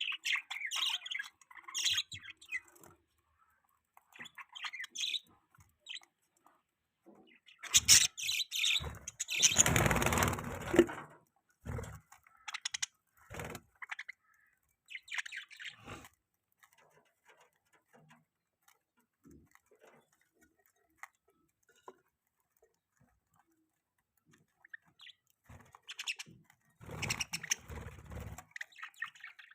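Budgerigars chirping and twittering in short scattered bursts, with a louder rustling noise about a third of the way in and again near the end.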